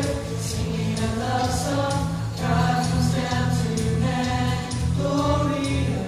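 Mixed choir singing, several voice parts together holding long notes.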